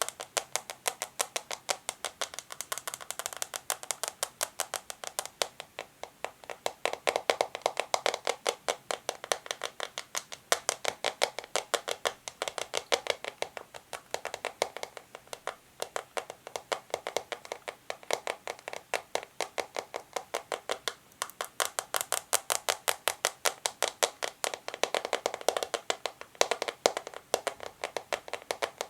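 Natural fingernails tapping quickly on a plastic contact lens container: a steady run of sharp clicks, several a second, with no pause.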